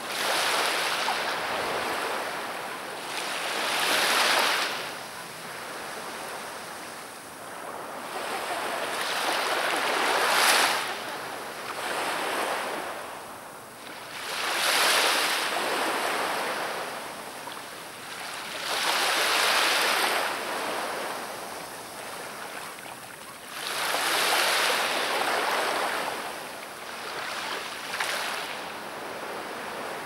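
Black Sea surf: waves breaking and washing ashore in slow surges, one every four to five seconds, each swelling up and then fading back.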